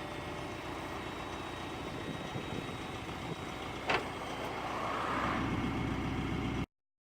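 DAF LF 7.5-tonne lorry's diesel engine running steadily, with a single sharp click about four seconds in; the sound cuts off abruptly near the end.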